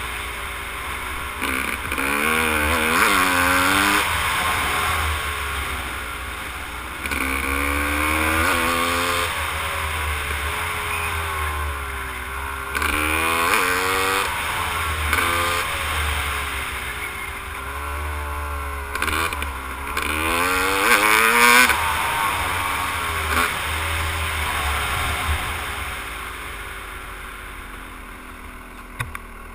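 Yamaha YZ250 two-stroke dirt bike engine, heard from the rider's helmet, revving up and dropping back again and again as it accelerates and shifts along a gravel trail. It eases off near the end. A steady low wind rumble on the helmet-camera microphone runs underneath.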